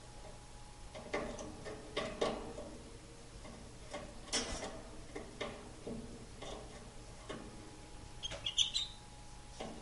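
Canary hopping about its wire cage: a string of irregular knocks and rattles from its feet on the perches and wire, roughly once a second, with a short burst of high chirps near the end.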